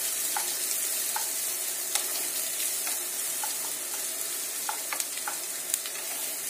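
Chopped onions sizzling in hot oil in a nonstick pan, stirred with a wooden spatula. The spatula knocks and scrapes against the pan in short clicks about once a second over a steady hiss. The onions are at the early frying stage, being cooked a few minutes until lightly browned.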